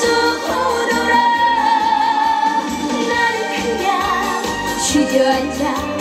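Young female singer singing live into a handheld microphone over a backing track with a steady beat, part of a song medley played through a stage PA. She holds one long note with vibrato about a second in.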